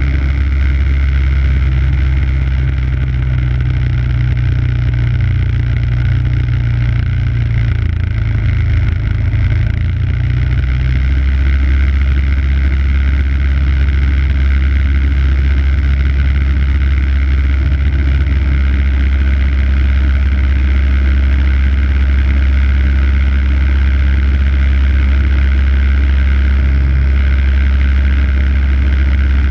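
MTD walk-behind snow blower's 5 hp engine running steadily, its note shifting slightly about ten seconds in.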